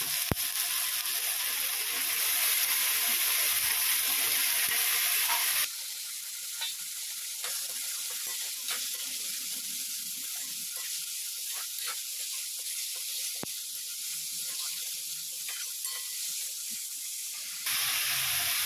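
Diced vegetables sizzling in hot mustard oil in a steel kadhai, with the spoon now and then clicking and scraping against the pan. The sizzle drops suddenly about six seconds in and comes back louder near the end.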